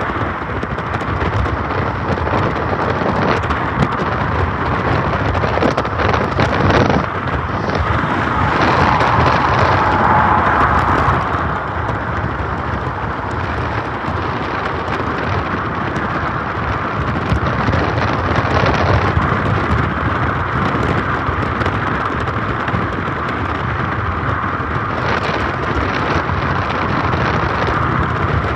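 Steady rush of road traffic passing close by, with wind buffeting the microphone. It swells louder for a few seconds partway through as a vehicle goes by.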